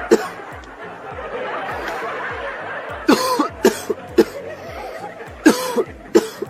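A person coughing: several short, sharp coughs, one near the start and a run of them from about three seconds in.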